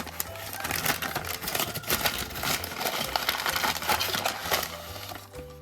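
A plastic bag being torn open and its contents rummaged, a dense crackling and crinkling that eases off near the end. Background music plays underneath.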